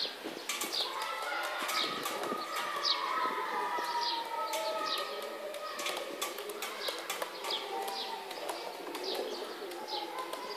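Buchón Gaditano pouter pigeons cooing in a wavering drone, with short high chirps from other birds about once a second.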